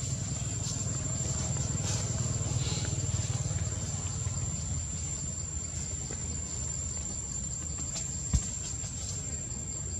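Outdoor ambience: a steady low rumble with a thin, steady high-pitched whine over it, and one short low thump about eight seconds in.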